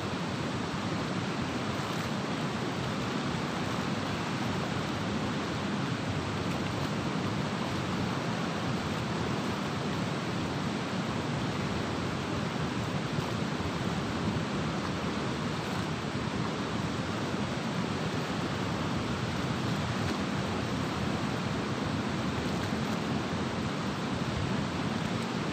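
Steady, unbroken rush of river water pouring through the open gates of a barrage.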